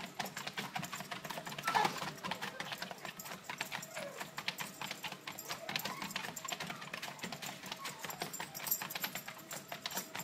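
A small dog's claws tapping quickly and evenly on a running treadmill belt, a fast run of light clicks, over a faint steady treadmill hum.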